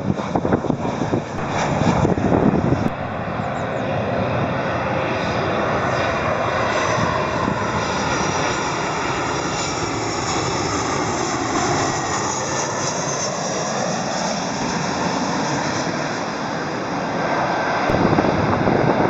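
Boeing 737 airliner's CFM56 turbofan engines rushing as the jet passes by, with slowly sweeping tones that dip and rise again midway. Wind buffets the microphone for the first few seconds and again near the end.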